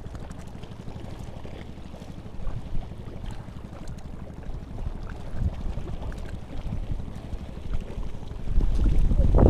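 Wind buffeting the microphone over small waves lapping and splashing against a concrete seawall, with a louder gust near the end.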